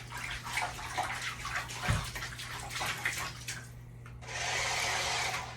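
Bathtub water splashed and sloshed by hand to make waves, a run of irregular splashes. About four seconds in, after a short lull, a steady whirring noise starts.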